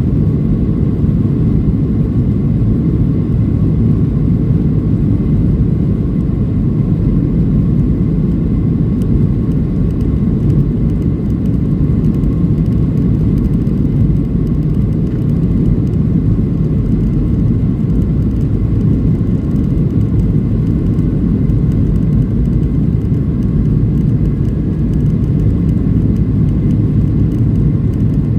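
Boeing 737-800's CFM56 turbofan engines running during takeoff: a loud, steady low rumble with a faint constant whine above it.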